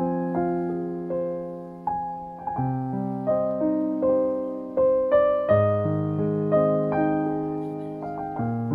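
Background piano music: a slow, gentle run of notes, each struck and left to ring as the next one comes in.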